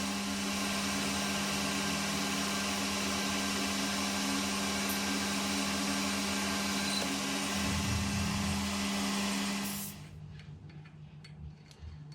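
A machine tool's motor running steadily with a strong hum while a boring bar cuts the bore of a brass bush. Near the end the machine is switched off and cuts out suddenly, leaving only a few light clicks.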